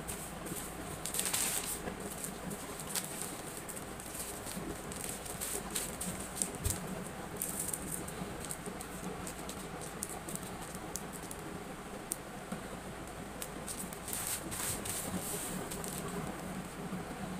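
Packing materials and small items being handled: light rustling with scattered small clicks and taps, busiest about a second in, in the middle and near the end, over a steady low background hum.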